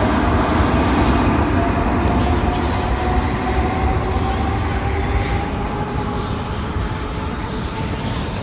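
Freight train running past: a steady rumble and rail noise of the wagons rolling by, with a faint whine slowly rising in pitch, easing off slightly toward the end.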